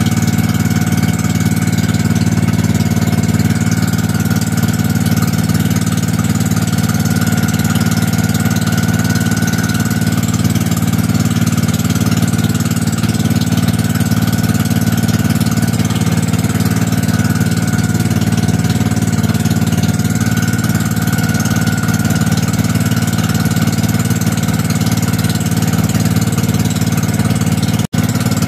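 Engine of a motorized outrigger boat (pump boat) running steadily under way, with wash and wind noise over it; the sound drops out for an instant near the end.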